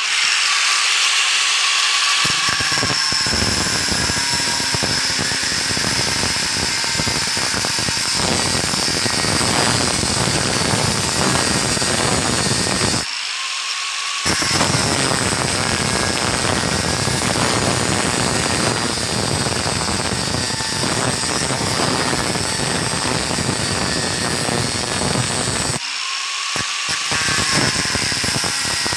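Hitachi angle grinder with a cutting disc cutting through the copper winding ends of a tile-cutter armature: a loud, dense grinding noise over a high whine. About two seconds in the disc bites into the work, and twice, near the middle and near the end, it briefly runs free as it comes off the work.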